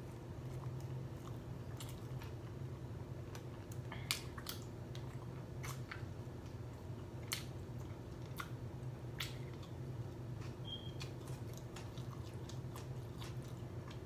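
A person biting into and chewing a soft burger up close: scattered short wet mouth clicks and smacks, the sharpest about four seconds in. A steady low hum runs underneath.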